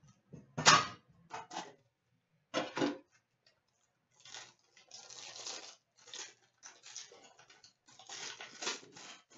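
Trading card box and pack being opened by hand: a few sharp knocks and snaps of the packaging, the loudest about a second in, then several seconds of dry rustling and tearing of wrapper and cardboard.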